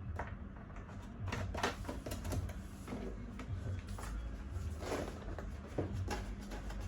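Irregular clicks and knocks of high chair parts being handled and fitted together, over a low steady hum.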